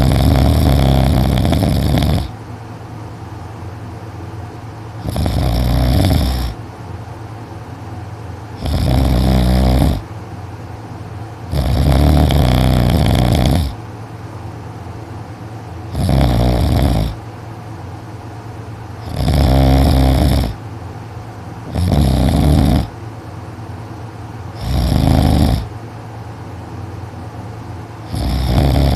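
A sleeping teenage boy's very loud, heavy snoring: about nine snores, one every three seconds or so, each lasting one to two seconds, with quieter breathing between them.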